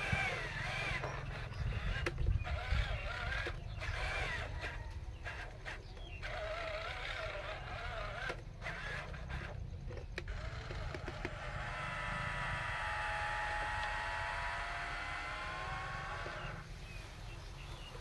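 Huina 1573 RC dump truck's small electric motors: the drive motor whirs in short spurts with brief pauses as the truck creeps forward, then the dump-bed lift motor gives a steady geared whine for about five seconds as the bed tips up, stopping shortly before the end.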